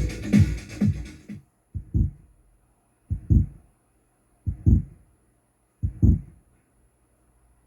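Electronic demo music from an Amiga stops about a second and a half in. Four low double thumps follow, evenly spaced about a second and a half apart, with silence between them.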